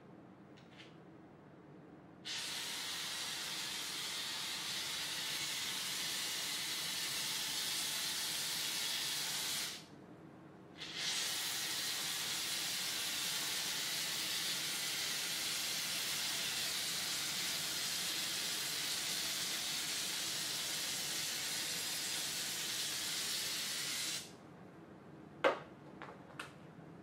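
Aerosol shaving cream can spraying foam in two long, steady hisses, the first about seven seconds and the second about thirteen, with a second's break between them. A sharp click comes shortly after the spraying stops, followed by a few faint ticks.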